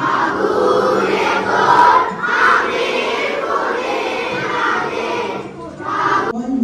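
A large group of children singing together in unison, like a choir, with the singing ending a little over six seconds in.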